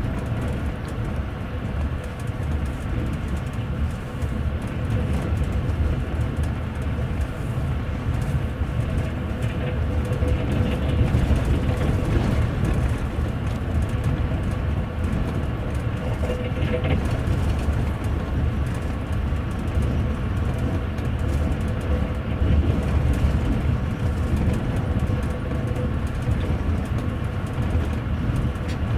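Passenger train running along the line, heard from inside the upper deck of a double-decker coach: a steady, continuous rumble of the wheels on the rails with a faint steady hum above it.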